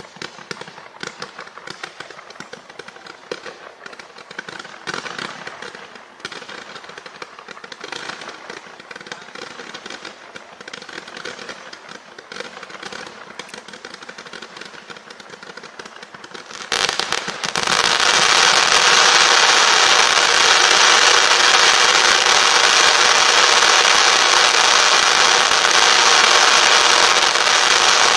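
Winda Fireworks 'Chaotic Incident' 652-shot, 500-gram fireworks cake firing. For most of the first two-thirds it is a rapid string of small shots popping in quick succession. About two-thirds of the way in it jumps to a much louder, continuous dense barrage.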